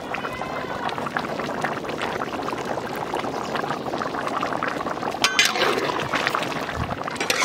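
Thick cauliflower and paneer curry bubbling and spluttering steadily in a large metal kadai, with a brief metallic clink about five seconds in as the spatula works the pot.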